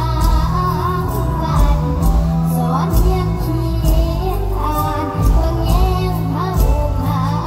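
A young girl singing a mor lam song into a microphone over an amplified band, with a steady bass line and a drum beat about twice a second.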